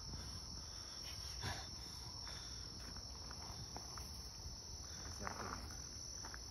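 Steady shrill insect chorus, a continuous high-pitched tone. A couple of soft rustles come about a second and a half in and again about five seconds in.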